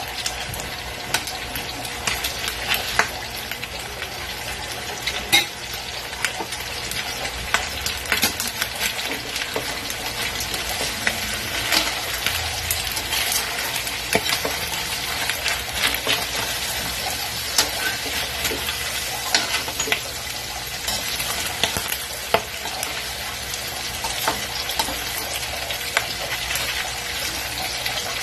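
Cubes of pork frying with a steady sizzle in a metal wok, while a metal spatula stirs them, scraping and clinking against the pan many times at irregular intervals.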